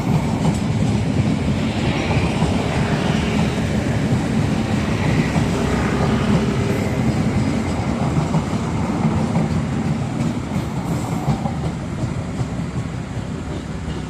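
Train running past on the track: a heavy rumble with wheel clatter, easing off near the end.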